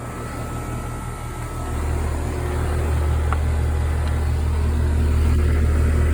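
Outdoor central air-conditioner condensing unit running, its compressor and fan giving a steady low hum that grows louder about two seconds in.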